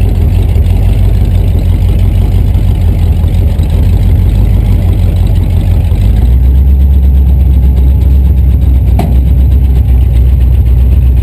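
Rat rod's engine running at low speed, a deep rumble heard from inside the cab. About six seconds in the rumble becomes louder and steadier, and there is a single click a little later.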